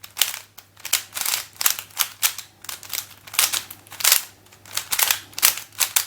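A Diansheng Zhen Tian 3x3 speedcube being turned quickly to scramble it: a steady run of sharp, hard plastic clacks, about three a second. Its plastic is hard and clackety, and the turning is not smooth.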